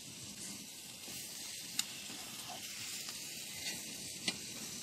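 MC Tomount titanium tent stove with a wood fire burning inside, giving a steady sizzling hiss. Two sharp clicks come about two and four seconds in.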